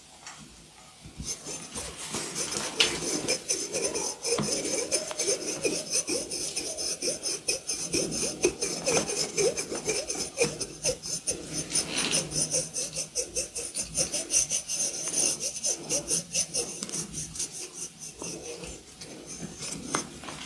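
Fast, repeated rasping strokes of hands or tools rubbing over hair and skin, starting about a second in.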